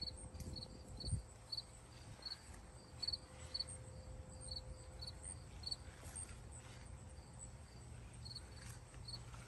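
Insect chirping in short, high pulses, about two a second, some coming as quick double or triple chirps. A few low thumps sound in the first second or so, over a faint steady low rumble.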